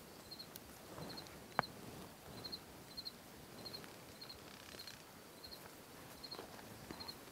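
Crickets chirping, short pulsed chirps about twice a second, with faint rustling and one sharp click about a second and a half in.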